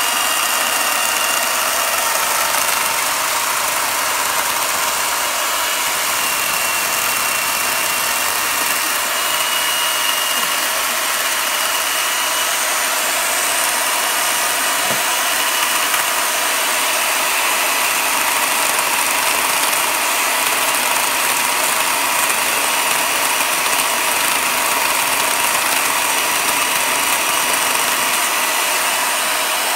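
Chainsaw running steadily with a high, even motor sound as its bar carves away wood from a thick bonsai trunk.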